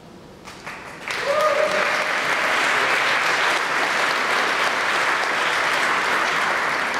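Audience applauding, starting about a second in and holding steady.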